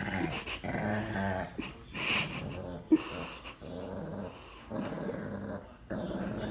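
Puppy growling in several short bouts, with one brief sharp knock about three seconds in.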